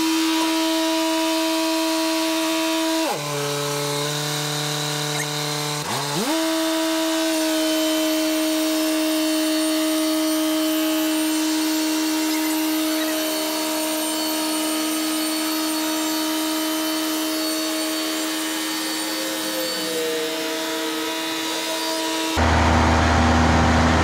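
Timberking 2000 portable band sawmill running as its head saws through a pine log, a steady machine whine. Its pitch drops about three seconds in and glides back up about three seconds later. Shortly before the end it switches abruptly to a lower, steady engine sound.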